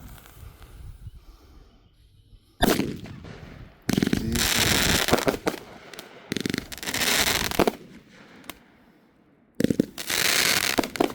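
Bunny Ears firecrackers going off: one sharp bang about two and a half seconds in, then three loud bursts of hissing and crackling, each about a second long.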